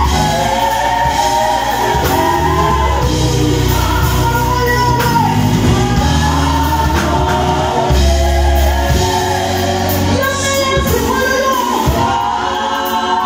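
A live vocal group singing together over instrumental backing, with held low bass notes underneath.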